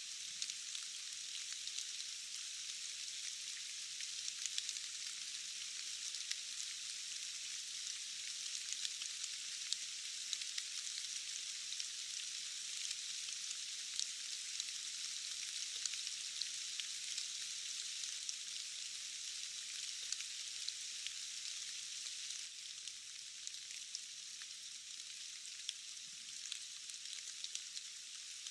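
Steady rain: an even hiss made of many small drop ticks, with almost no low rumble, easing off slightly about three-quarters of the way through.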